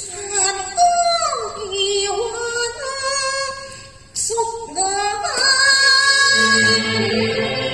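Cantonese opera music: a high melody line slides between notes. A low accompaniment joins about six seconds in.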